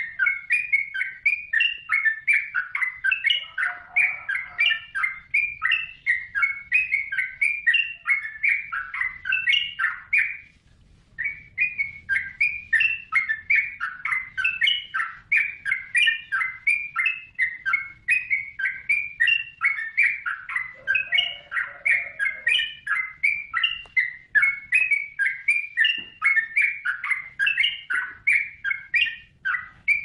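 Yellow-vented bulbul (trucukan) singing: a rapid, near-continuous run of short chirping notes, several a second, with one brief pause about ten seconds in.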